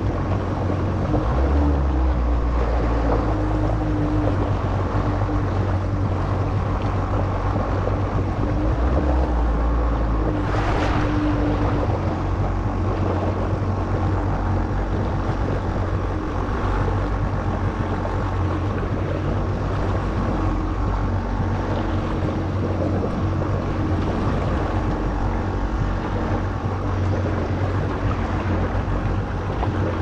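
Kawasaki SX-R 1500 stand-up jet ski's four-cylinder four-stroke engine running steadily underway, with water rush and wind buffeting the microphone. One brief swell of noise comes about ten seconds in.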